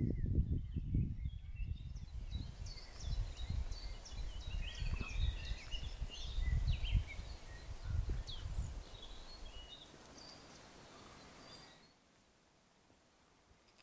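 Small birds chirping and singing in woodland, many short high calls overlapping, with wind gusting on the microphone as a low, uneven rumble. Both die away about ten seconds in, leaving a much quieter background.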